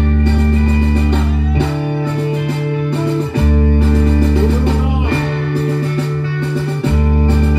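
A live rock band playing: bass guitar holding long low notes that change about every second and a half to two seconds, with electric guitar and a drum kit keeping time.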